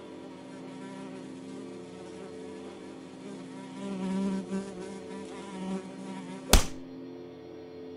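A fly buzzing steadily, swelling louder for a couple of seconds around the middle. A single sharp smack comes about six and a half seconds in.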